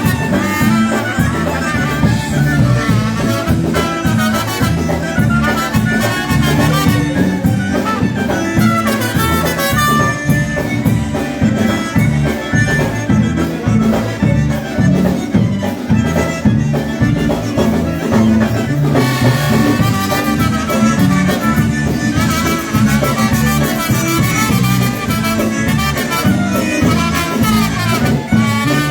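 Live polka band playing an instrumental stretch of a tune with a steady bass beat under the melody, stopping at the very end.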